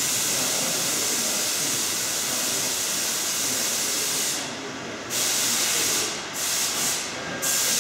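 Loud steady hiss from a workshop tool working on the locomotive's sheet-steel valance. It cuts out briefly three times: about halfway through, about a second later, and shortly before the end.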